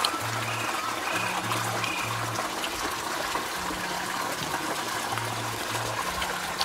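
Soft background music with a slow bass line alternating between two low notes, over a steady trickle of running water.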